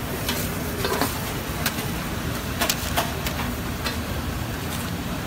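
Steel spatulas clacking and scraping on a large flat iron griddle (tawa) in a scatter of sharp metal knocks, about eight in all, over a steady low background rumble.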